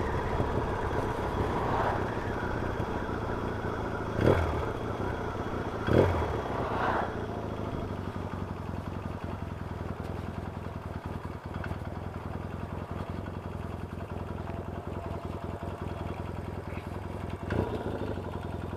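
Yamaha XS650 air-cooled parallel-twin running as the motorcycle is ridden. A few brief louder sounds stand out from the steady engine note, about four, six, seven and seventeen and a half seconds in.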